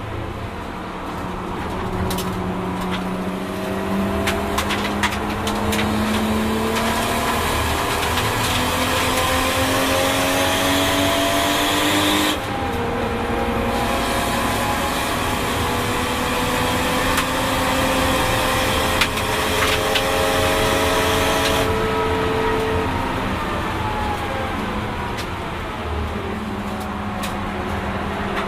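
Nissan Skyline R32 GT-R's single-turbo RB26 straight-six, running on low boost, heard from inside the cabin: it pulls up through the revs with a rushing hiss over the top, breaks for a gear change about twelve seconds in, pulls again, then the revs fall away near the end as the driver lifts.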